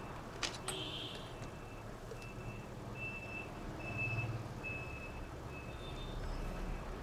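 A faint electronic beep, short and high, repeating about every three quarters of a second. A sharp click and a brief rustle come near the start.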